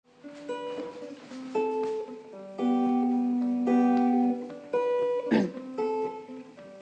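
Acoustic guitar playing a song's instrumental intro: a series of plucked, ringing notes and chords. About five seconds in there is a short falling slide.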